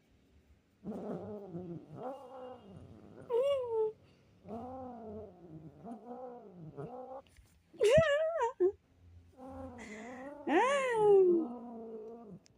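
Cat caterwauling: a string of about ten drawn-out, wavering yowls that rise and fall in pitch. The two loudest and highest cries come about two-thirds of the way through and near the end.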